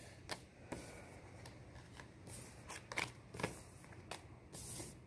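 A tarot deck being shuffled by hand: faint, irregular rustles and soft card flicks, with a few sharper snaps of the cards.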